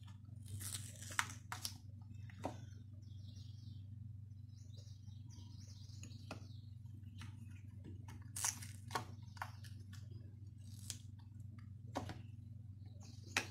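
Chocolate hearts being popped out of a flexible silicone mold by hand and set down on a ceramic plate: scattered soft clicks and taps with faint rubbery rustling, over a steady low hum.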